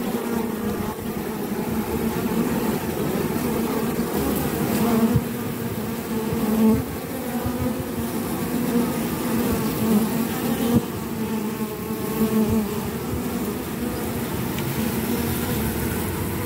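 Honey bees buzzing at a busy hive entrance: a steady, wavering hum of many wingbeats.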